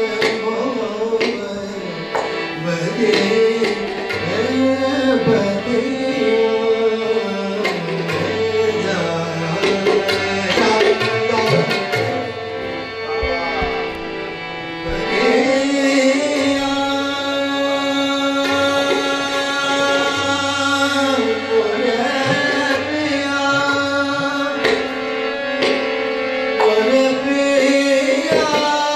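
Live harmonium and tabla playing, with a man singing over them in parts. Held harmonium chords run under a steady run of tabla strokes that grows busiest about ten seconds in.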